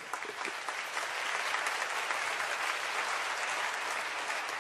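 A large audience applauding. The clapping builds in the first second, holds steady, then fades out near the end.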